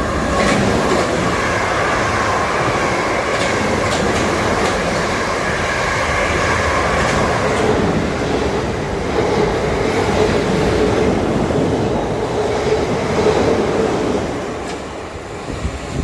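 A train passing on the rails: a steady loud rumble of wheels with repeated clickety-clack over rail joints and a whine that moves to a lower tone about halfway through. It fades over the last couple of seconds.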